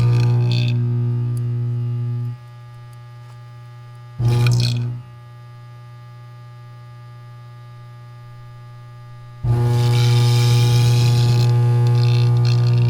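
Welder-powered carbon arc at 150 amps, humming loudly and steadily. It is struck three times: it runs for about two and a half seconds, drops out, flares briefly around four seconds in, then catches again and keeps running from about nine and a half seconds on. A quieter hum is heard in the gaps.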